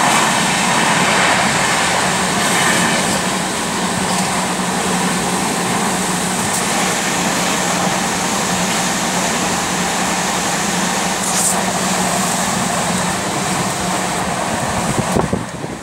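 Steady, loud running noise of a fast-moving express passenger train heard from inside a sleeper coach: an even rush of wheels on rails and air with a steady low hum underneath, dipping briefly near the end.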